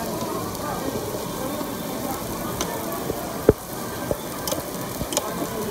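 Meat sizzling steadily on a hot barbecue grill, with a few sharp knocks, the loudest about three and a half seconds in.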